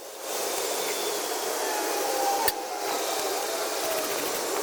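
A steady whooshing hiss, like a blower or fan running, with one sharp click about two and a half seconds in.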